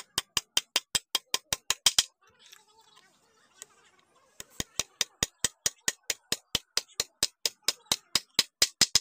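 Hammer tapping small nails into a wooden table leg, quick light strikes about five or six a second, in two runs with a pause of about two seconds between them.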